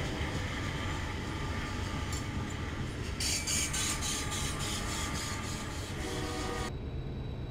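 Freight train passing close by: a steady low rumble of the cars, with rhythmic wheel clicks over rail joints, about three a second, from about three seconds in. Near the end the clatter cuts off suddenly, leaving a quieter low rumble.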